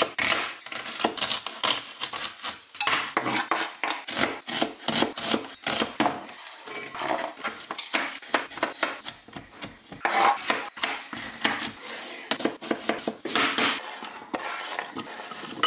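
Kitchen knife chopping garlic and zucchini on a plastic cutting board: a quick, uneven run of sharp knocks, thinning out briefly about halfway through.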